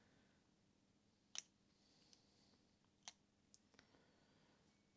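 Near silence broken by four faint, separate clicks of small carburetor parts being handled during a strip-down.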